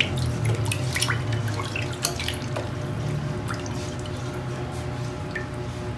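Water dripping and splashing with light clicks, mostly in the first half, over a steady low hum.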